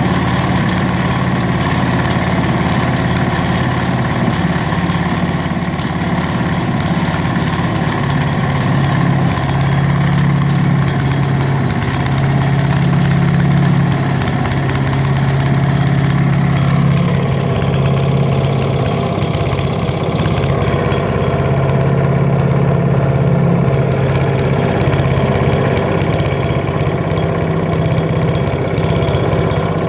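Wood chipper's engine running steadily on compressed biogas fed straight into the carburettor, its note changing slightly about halfway through.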